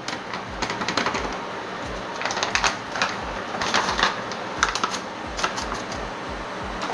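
A crinkly plastic packet of gulab jamun mix crackling and rustling as the rest of the powder is shaken out into a steel bowl, with a hand working the mix against the bowl. It comes as irregular clusters of quick crackles and clicks over soft thuds.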